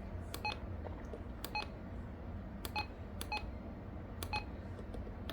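Key beeps from a RadioShack 12-261 weather alert radio as its buttons are pressed during setup: about half a dozen short electronic beeps with clicks, irregularly spaced a second or so apart, over a faint low hum.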